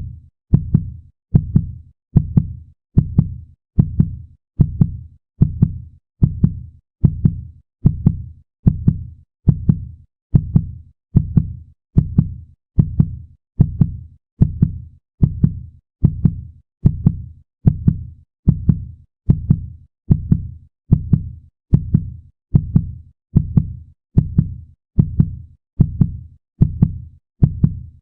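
Fast heartbeat sound effect: a steady run of low lub-dub double thumps, a little faster than one beat a second, with no change in pace.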